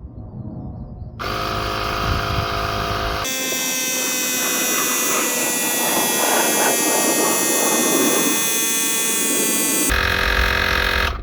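Asperx AX60 portable tire inflator's electric compressor starting about a second in and running with a loud, steady buzzing hum made up of many pitched tones. It is inflating a bike tire to a set 35 PSI. Its sound changes sharply about three seconds in and again near the end.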